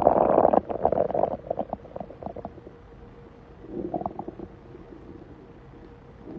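A man's stomach growling. A loud rumble breaks into a run of short gurgles that fade over about two seconds, then another short gurgle comes about four seconds in.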